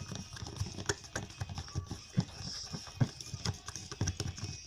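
Spoon stirring white glue and paint in a bowl: irregular clacks and scrapes of the spoon against the bowl, several a second.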